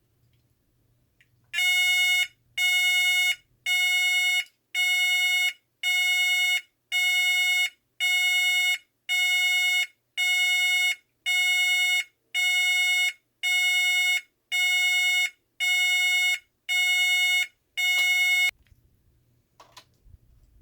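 Federal Signal SLM800R electronic signal sounder giving an intermittent alarm tone: a steady, shrill, buzzy beep repeated about once a second, around fifteen times, then stopping.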